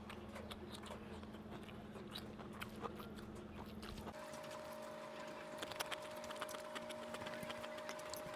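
Close-up eating sounds: chewing, and fingers mixing rice on a steel plate, heard as many small clicks and smacks, more of them in the second half. A steady background hum runs underneath and shifts to a higher tone about four seconds in.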